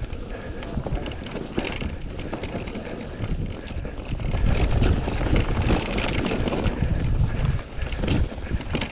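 Wind buffeting the microphone over the rumble of an electric mountain bike riding rough trail, with many quick knocks and rattles from tyres and frame; it gets louder about halfway through.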